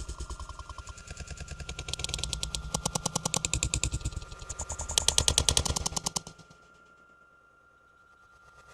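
Rapid rattling clatter, many sharp knocks a second in bursts that swell and fade, stopping about six seconds in. A faint steady tone runs beneath it.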